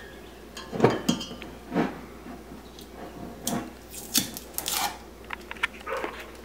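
Irregular sharp clicks, taps and light scrapes as the lid of a jar of honey is handled and prodded with a thin utensil in an attempt to open it.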